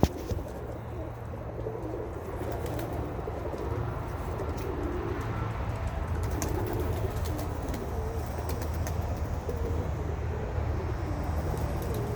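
Domestic pigeons cooing continuously as a flock, with scattered light clicks and a steady low hum underneath. There is one sharp knock right at the start.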